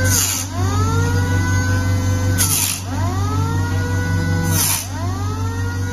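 Pneumatic nick grinder's air motor whining at speed, bogging down three times about two seconds apart as its grinding wheel cuts nicks into a steel cutting rule. Each cut brings a short burst of grinding hiss, and the whine climbs back up in pitch after it.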